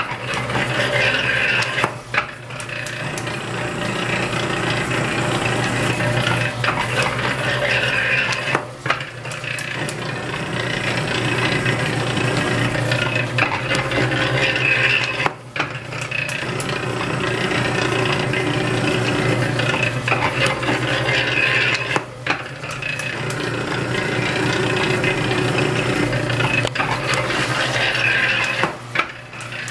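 Antique (1880s–1900) metal planer, belt-driven by an electric motor, running steadily while planing cast iron: a continuous metallic clatter and rattle of the reciprocating table and gearing over a steady hum. The sound briefly dips five times, about every six and a half seconds, as the table reverses at the end of each stroke.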